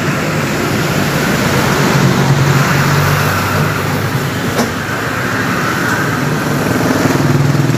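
A motor vehicle engine running close by, with a low hum, louder about two seconds in and again near the end. A single sharp click about halfway.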